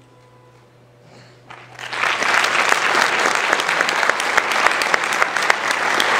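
Faint closing music dies away, then an audience breaks into applause about a second and a half in, a dense, steady clapping of many hands.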